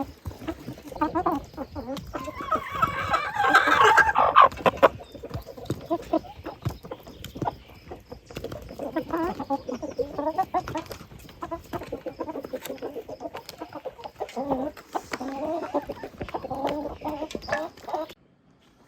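Chickens clucking in a run of short calls, with one louder, longer call about three to four seconds in, and scattered light clicks and knocks between the calls.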